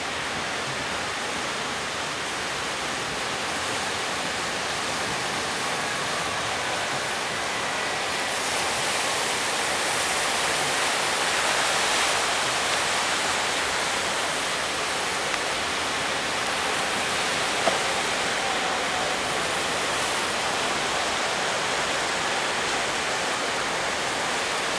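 Ocean surf breaking: a steady rush of waves that swells louder around the middle. There is one brief knock about two-thirds of the way through.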